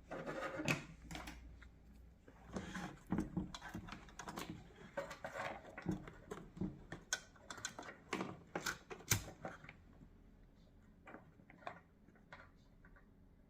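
Irregular light clicks and taps of small hard objects being handled, thinning out after about ten seconds.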